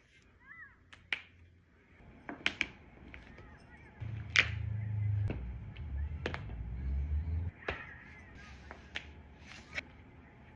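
Joints cracking during chiropractic adjustments: a series of sharp, irregular cracks and pops, the loudest a little over four seconds in. A low rumble runs from about four to seven and a half seconds.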